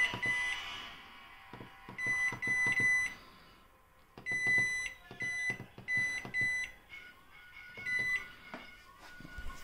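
Hisense front-loading washing machine's control panel beeping as its Temp. and Spin buttons are pressed to set the wash. Short, high electronic beeps come singly and in quick runs of two or three, with faint button clicks under them.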